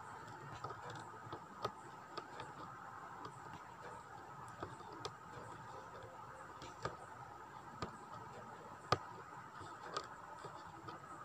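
Aari hook needle piercing fabric stretched on an embroidery frame as zari thread is stitched through. It makes faint, irregular clicks roughly once a second, with a sharper one late on, over a steady background hum.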